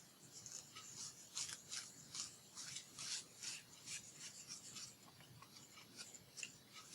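Faint, repeated short rubbing strokes on paper, a couple a second, as paper pieces are worked by hand or with a tool.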